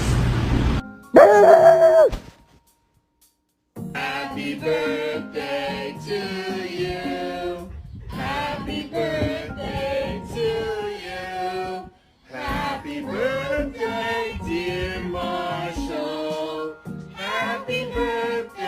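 A brief, loud pitched cry about a second in, followed by a short silence. Then music with singing carries on, pausing briefly around the middle.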